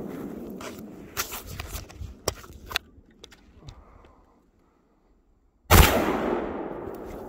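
Rifle fire at exploding Tannerite targets: the rumble of one blast dies away, a few sharp clicks follow, and then one sudden, very loud blast comes about two-thirds of the way in. It rolls away slowly through the woods.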